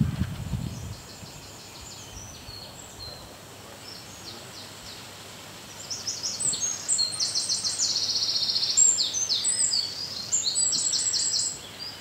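A small songbird singing a high-pitched song of fast trills and quickly repeated notes, loud from about halfway through until just before the end, with quieter snatches of song earlier.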